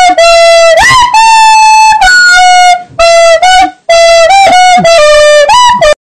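A shrill, flute-like melody played on a fidget spinner with a pen through its bearing hole, blown like a whistle. The short notes slide up and down between pitches and are very loud, with two brief breaks, and the sound cuts off abruptly just before the end.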